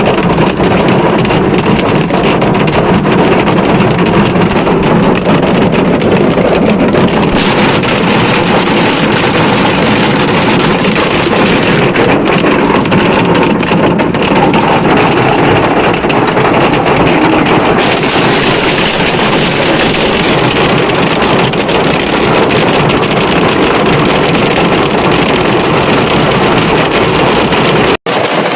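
Heavy rain pouring down, a loud steady hiss, turning brighter and hissier for a few seconds twice along the way. It cuts out for a moment near the end.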